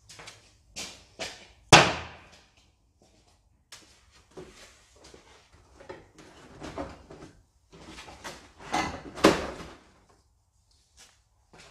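Irregular knocks and clanks of hand tools and parts being handled while stripping a car's front end, with a sharp bang about two seconds in and a louder cluster of knocks near nine seconds.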